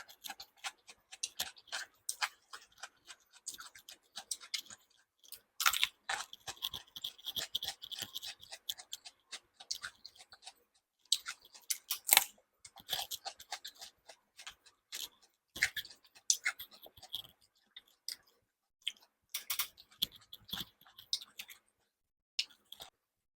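Close-miked chewing and wet mouth sounds of a person eating: irregular smacks and crunchy clicks, with a few brief pauses.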